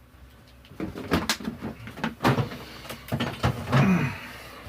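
Hair straightener's small plastic parts being handled: a series of irregular clicks and knocks.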